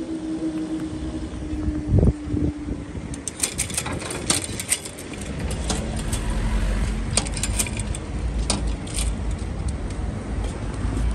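Road traffic resuming over a level crossing: a car drives across the rails, its engine and tyres rumbling low. A steady hum fades out in the first two seconds, there is a sharp thump about two seconds in, and a run of light metallic clicks and jingles follows in the middle.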